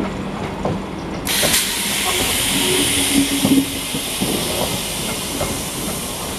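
Old-style electric multiple unit local train passing close by, with wheel knocks over rail joints. About a second in, a loud steady hiss starts suddenly and carries on.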